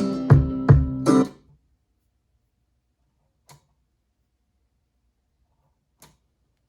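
Guitar music with sharp beats played through a McIntosh MA 6100 amplifier and loudspeakers, stopping about a second in. Then near silence with two faint clicks.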